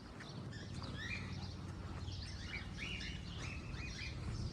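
Many small aviary birds chirping over one another in quick, short calls, over a steady low hum.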